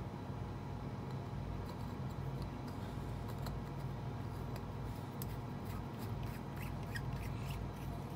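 Faint clicks and rubbing of a plastic carbon filter being screwed by hand onto a metal CO2 regulator, over a steady low hum.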